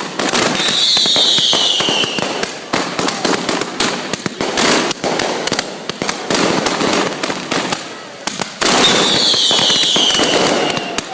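Fireworks going off in quick succession with dense crackling. Twice, a high whistle falls in pitch over about a second and a half.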